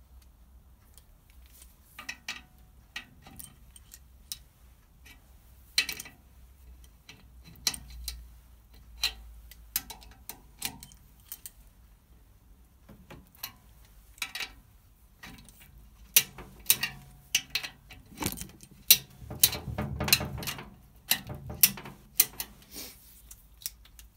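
Socket torque wrench tightening the cylinder head nuts of a Citroën 2CV engine: scattered metallic clicks and clinks of the ratchet and socket on the nuts, coming thicker and louder in the second half.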